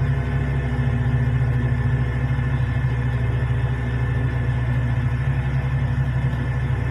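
Large diesel engines of heavy mining machinery, a hydraulic excavator and a haul truck, running steadily: a deep, even drone with no revving.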